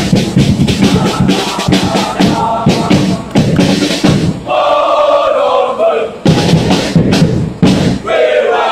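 Packed crowd of football supporters chanting and cheering over a fast, steady beat. About halfway through the voices swell into a loud chant sung in unison, and again near the end.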